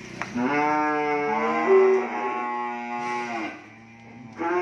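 A cow mooing: one long lowing call of about three seconds, then a second call starting near the end.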